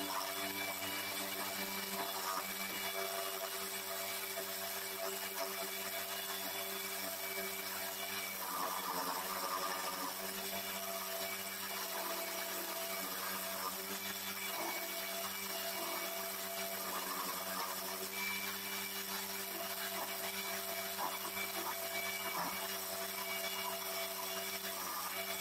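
Homemade wood lathe's electric motor running steadily, spinning a small wooden lure blank, while a chisel cuts into the turning wood in short scraping passes.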